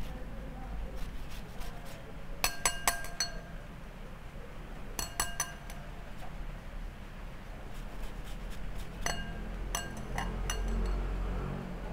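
Metal tip of a handheld rasp grater clinking against a glass bowl, in three quick clusters of ringing taps, while a lemon is zested on it; faint rasping of the peel across the blade in between.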